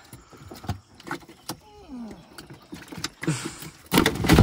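Catfish being handled in a plastic fish box on a boat: irregular knocks and bumps of fish and hands against the box, ending in a louder thump and rush near the end.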